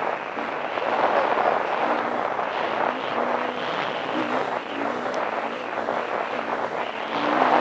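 KTM 350 EXC single-cylinder four-stroke dirt bike engine under way, heard from the rider's helmet, its pitch rising and falling again and again as the throttle opens and closes.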